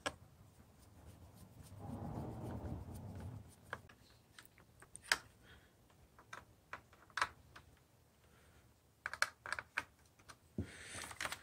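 Small screwdriver driving screws into a plastic clock-radio circuit board and housing. There are scattered light clicks and ticks of the tool and plastic parts, a short rubbing noise about two seconds in, and a quick run of clicks near the end.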